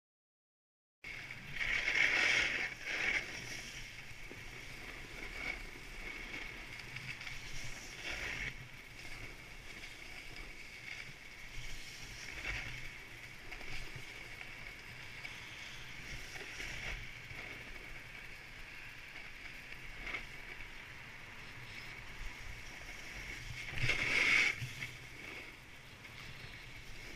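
Steady rushing and scraping of a descent over packed snow on a groomed ski slope, with wind on the microphone. It starts about a second in and swells louder twice, about two seconds in and again near the end.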